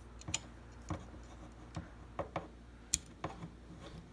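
Small plastic clicks and taps from a Transformers Rippersnapper action figure being handled as its guns are pegged onto its sides: about eight irregular clicks, the sharpest just before three seconds in.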